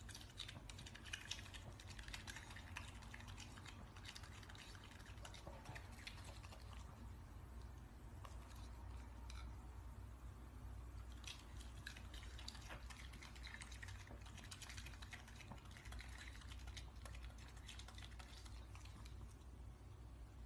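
Raccoon chewing and smacking on juicy fruit: faint, irregular wet clicks and crackles.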